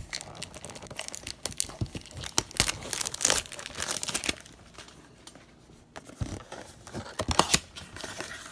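A hard-to-open blaster box of baseball cards being torn open: wrapper and cardboard tearing and crinkling in irregular crackles, with a short lull about five seconds in.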